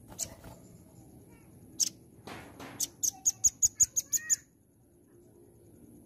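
Velvet-fronted nuthatch (red-billed nuthatch) calling: a couple of single sharp high notes, then, about halfway through, a fast run of about nine sharp high notes at some six a second, lasting under two seconds.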